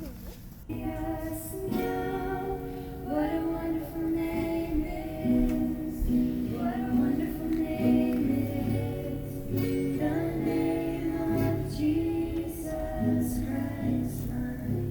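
A group of voices, women and children among them, singing a song together. The singing starts about a second in.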